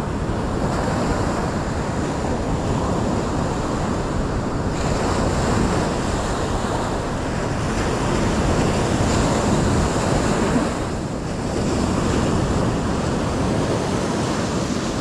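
Ocean surf breaking and washing up a sand beach, with wind buffeting the microphone.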